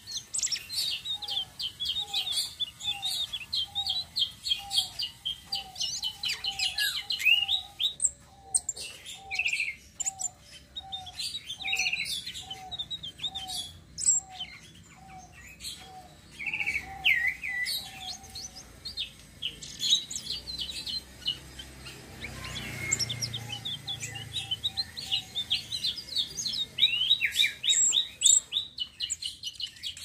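Caged tledekan sitrun selendang biru, a small blue songbird, singing in long rolling runs of quick high chirps and trills, with brief pauses. Beneath it, a lower short note repeats evenly, a little under two a second, for the first half or so.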